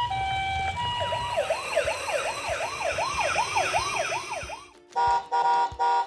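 Electronic toy ambulance siren. It alternates between two tones (hi-lo), then about a second in switches to a quick up-and-down wail that stops shortly before the end. It is followed by a few short electronic beeps.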